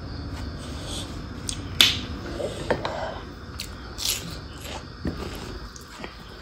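Eating by hand in a mukbang: wet mouth clicks and smacks as food is bitten and chewed, with fingers working rice on a plate. A sharp click just under two seconds in is the loudest.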